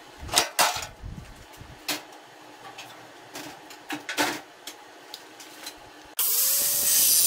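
Scattered knocks and clatter of sheet-metal engine tin as a VW fan shroud is lifted off and set aside. About six seconds in, an angle grinder is switched on and spins up with a rising whine, then runs free with a loud steady hiss.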